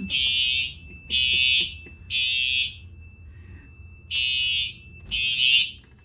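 Fire alarm horn sounding a temporal-three evacuation pattern: three harsh half-second blasts, a pause of about a second and a half, then three more blasts. It is very loud.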